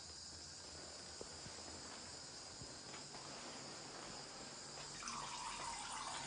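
Domestic cat urinating into a toilet bowl: a faint trickle of liquid into water that starts about five seconds in, over a steady faint hiss.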